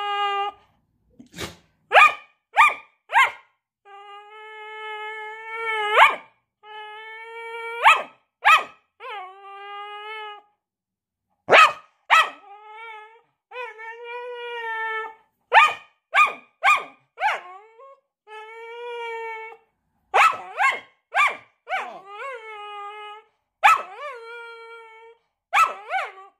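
Staffordshire bull terrier alternating long, steady-pitched howls of a second or two with runs of short, sharp barks, over and over.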